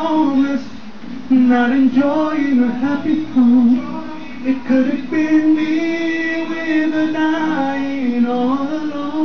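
A cappella singing: several unaccompanied voices in harmony, a moving melody over held lower notes, with a man singing along into a handheld microphone.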